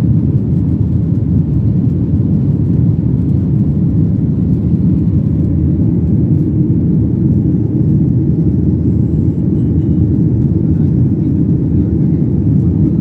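Jet airliner cabin noise during the climb after takeoff: a loud, steady low roar of the engines and rushing air, heard from inside the passenger cabin.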